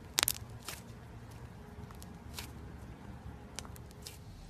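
Thick slime squeezed and kneaded in a hand, giving scattered sharp pops and clicks as air pockets burst. The loudest pop comes about a quarter second in, over a steady low rumble.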